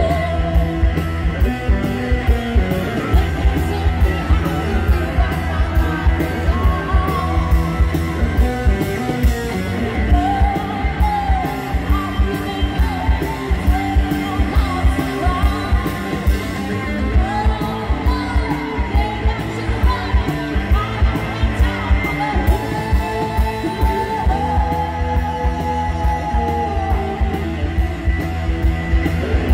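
Live rock band playing: a female lead vocal over electric guitar, bass, drums and keyboard, with a steady drum beat. The sung lines come in about a third of the way through.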